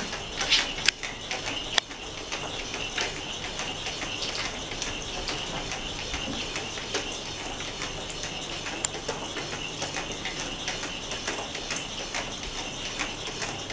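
Battery-powered rolling ball toy's small geared motor running, a steady whirring rattle of gears as the ball rolls across the tile floor. A few louder clicks stand out in the first two seconds.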